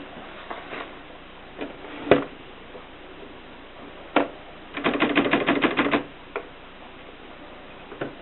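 Gossen Tippa portable typewriter being worked: scattered single key strikes, two of them louder, and a quick rattling run of about a dozen clicks about five seconds in.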